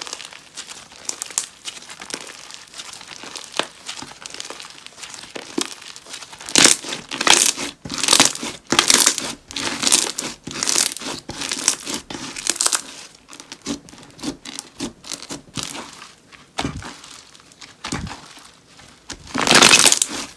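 Slime being squeezed and stretched by hand, giving a dense crackling and popping, with a run of louder squishes in the middle and a long loud one near the end.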